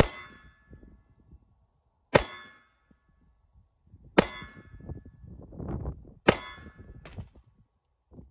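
Four shots from a Taurus G3c 9mm compact pistol, fired at a steady pace about two seconds apart, each with a short ring after it. Low wind rumble on the microphone between shots.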